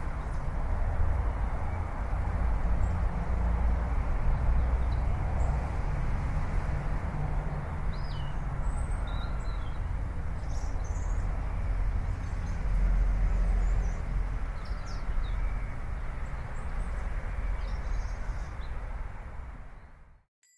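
Outdoor street ambience: a steady low rumble with small birds chirping now and then above it. It fades in at the start and cuts off sharply just before the end.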